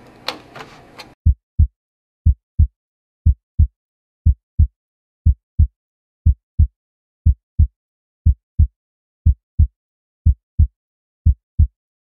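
A few sharp clicks, then a heartbeat sound effect: paired low thumps, lub-dub, about once a second over complete silence.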